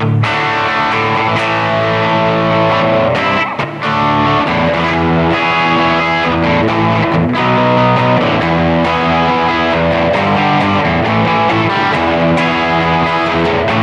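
2020 Epiphone Les Paul Custom electric guitar on its bridge pickup, played through an amplifier: strummed chords and picked notes ringing out one after another.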